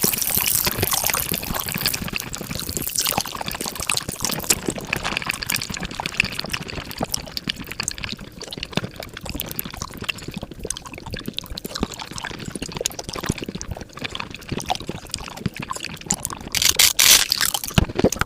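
Mukbang eating sounds played back at five times speed: a fast, dense stream of wet chewing and slurping clicks, with a louder burst near the end.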